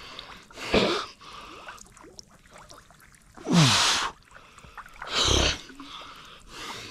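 A person's loud breathy exhalations or gasps, three of them, each starting with a short falling voiced sound.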